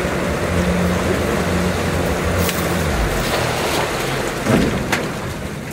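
Boat motor running with a steady low hum that dies away about three seconds in, over a constant hiss of wind and water. A few light knocks come in the second half.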